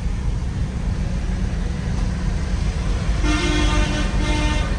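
A vehicle horn sounds a quick string of short honks about three seconds in, over a steady low rumble of engine and road noise.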